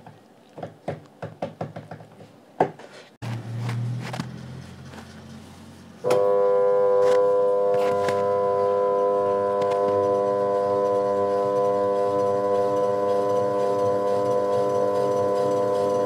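A few light clicks and taps, then about six seconds in a Whirlpool top-load washing machine switches on with a sudden, loud, steady electrical hum made of several even tones, as it powers up on its repaired control board.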